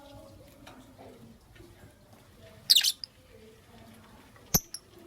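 Lovebird calls: one loud, shrill chirp a little past halfway, then two short, sharp chirps in quick succession near the end.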